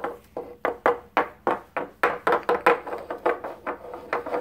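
Painted wooden nativity figures knocked along a wooden tabletop in a walking rhythm, about three taps a second.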